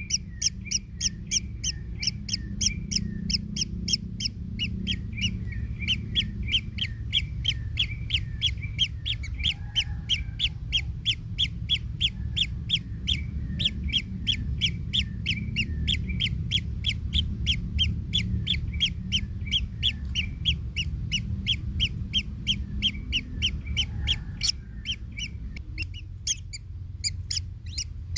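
Kingfisher nestlings calling in the nest: a long run of short, high, evenly repeated calls at about three a second, which thin out and stop near the end, over a low rumble.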